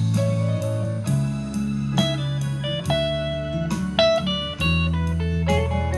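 Solo Telecaster-style electric guitar playing an instrumental passage: picked single notes, a new one about every half second, ringing over held bass notes.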